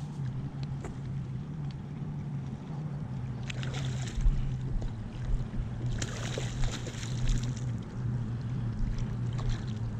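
Boat motor running with a steady low hum. Two short bursts of hiss come about three and a half and six seconds in.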